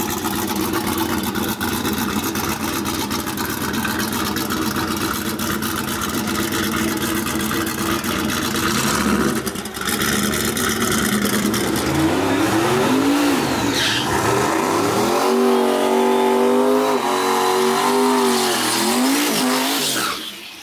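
Drag-racing pickup truck engines running loud at the starting line. From about twelve seconds in, one engine is revved up and down again and again in quick blips before the launch.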